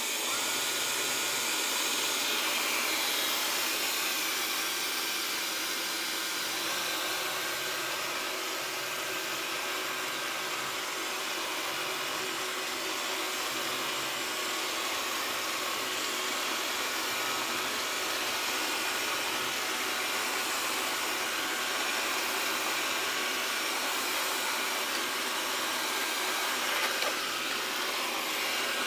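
Xiaomi Mi robot vacuum cleaner running steadily, its suction fan and brushes whirring as it works across a desk, with a short knock near the end.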